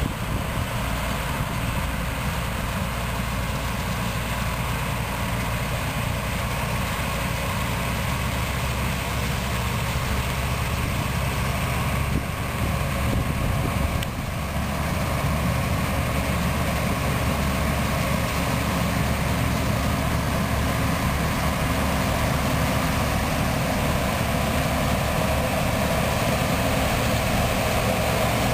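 Heavy farm machinery running steadily at harvest: a continuous engine drone with mechanical noise, dipping briefly about halfway through.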